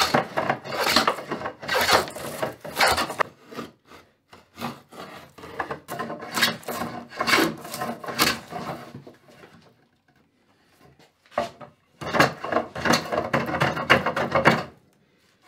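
Wooden hand plane taking repeated quick strokes along a softwood strip, each stroke a shaving cut, while cutting a rabbet along its edge. The strokes pause for about two seconds in the middle, then resume in a second run that stops shortly before the end.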